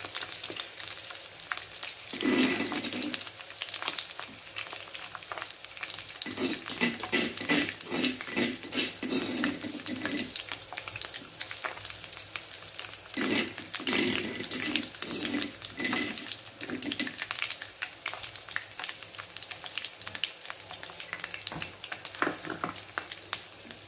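Oil sizzling in a steel wok as ground spice paste goes into the hot oil with lemongrass and leaves. Utensils scrape and clatter against the pan in several short spells.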